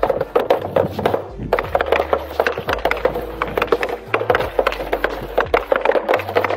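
Hockey stick blade knocking a puck back and forth on plastic dryland shooting tiles while stickhandling: a fast, uneven run of hard clacks, several a second.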